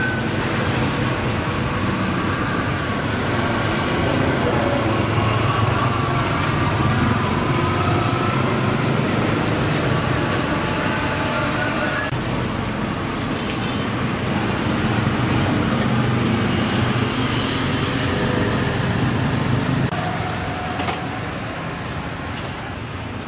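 Steady street traffic noise with faint voices in the background.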